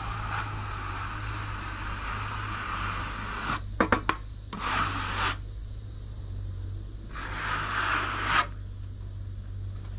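Wood scraping and rubbing against wood in several rough strokes, the last cutting off sharply, with a few sharp clicks in the middle, over a steady low hum.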